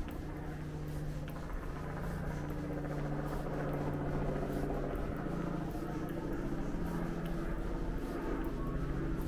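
Footsteps on a paved street over a steady low motor hum whose tone shifts now and then.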